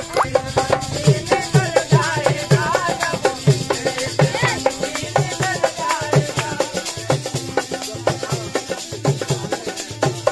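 Indian folk music from a live troupe: a gliding melody over a steady drum beat of about two strokes a second, with rattling percussion.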